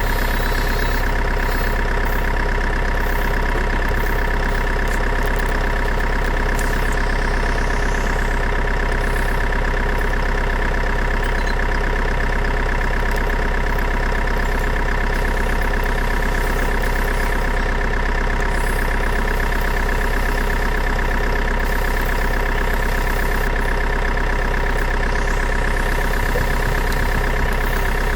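Steady engine-like idling drone with a constant hum, unchanging in pitch or level throughout.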